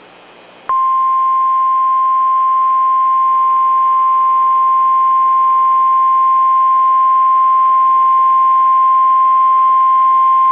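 Emergency alert attention signal: a single steady high tone, the NOAA Weather Radio 1050 Hz alarm, starting abruptly just under a second in and holding for about ten seconds before cutting off. It announces an incoming tornado warning.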